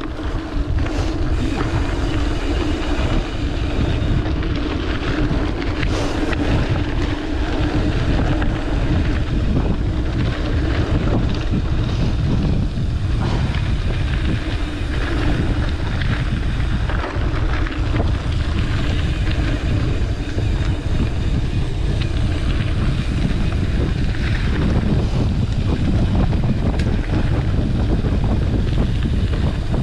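Wind buffeting the microphone and tyres rumbling over a dirt forest road as a mountain bike descends fast, with a steady hum for roughly the first dozen seconds.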